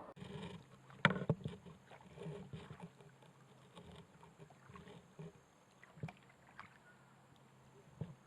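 Kayak paddling: faint, irregular water splashes and drips from the paddle, with a few sharp knocks, about a second in and again near six and eight seconds.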